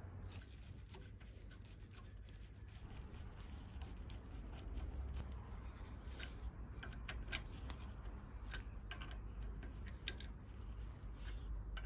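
A small screwdriver turning screws into a sewing machine's metal cover plate: faint, irregular clicks and scrapes of metal on metal as the cover is fastened back on.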